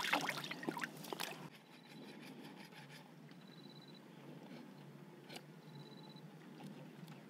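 Water splashing and dripping as a whole plucked duck is rinsed in river water, stopping about a second and a half in. Then it goes quiet, with a single sharp knock later on and three short, faint high tones.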